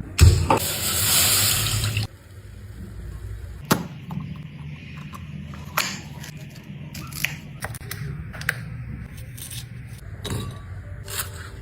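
Water running for about two seconds and then cut off abruptly, followed by scattered light knocks and clicks of kitchen things being handled.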